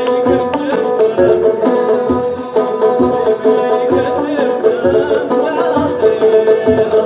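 Live band music: plucked strings playing a riff over a drum beat, with a low drum hit about once a second.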